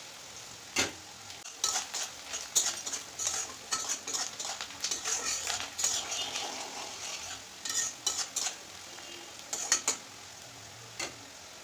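Metal spatula scraping and clinking against a kadai as sliced onions are stirred while frying in oil, under a light sizzle. The stirring mostly stops near the end, leaving only the sizzle and a couple of clinks. The onions are being fried until they turn reddish-brown.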